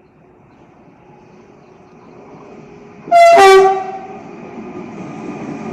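Renfe series 256 electric locomotive hauling a coil freight train: its rumble grows steadily louder as it approaches. About three seconds in, it gives one short, loud blast on its horn.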